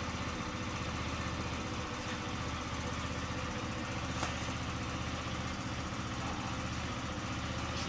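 Honda Dio scooter's small two-stroke engine idling steadily. The owner still suspects something is not quite right with its carburettor.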